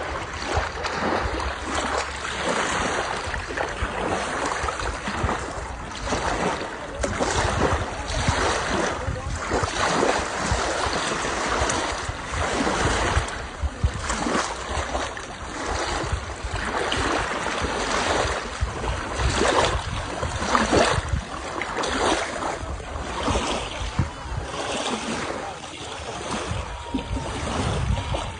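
Sea waves washing onto the shore: a continuous rush of surf that swells and falls in irregular surges every second or two.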